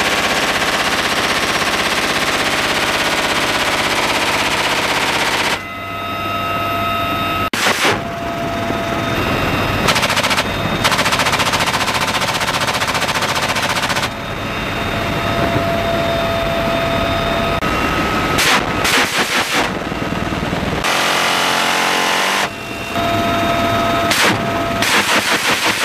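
Door-mounted machine gun on a UH-1Y Venom helicopter firing long rapid bursts, over a steady whine and running noise from the helicopter. The sound changes abruptly several times.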